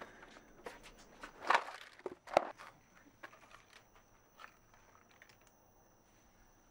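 Hands rummaging through a box of cardboard-mounted photo slides: scattered clicks and rustles of the mounts, with two louder knocks about one and a half and two and a half seconds in. The handling dies away about five and a half seconds in.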